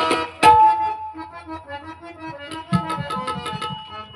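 Harmonium playing held notes and chords. A loud sharp percussion strike comes about half a second in, and a run of lighter taps comes near the end.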